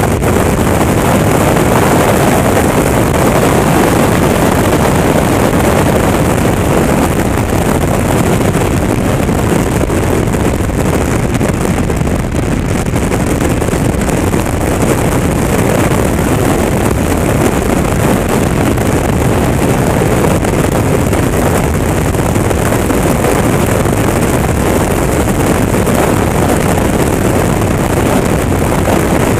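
Honda CTX1300 V4 motorcycle riding at a steady cruise, heard mostly as a constant wind rush over the camera microphone with the engine and road noise beneath it.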